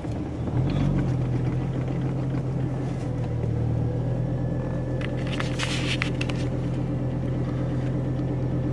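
2006 Hummer H3's 3.5-litre inline-five idling steadily just after a cold start, heard from inside the cab. There are a few light clicks about five to six seconds in.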